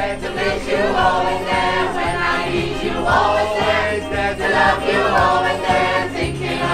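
Mixed choir singing a song together over an accompaniment with a low bass line.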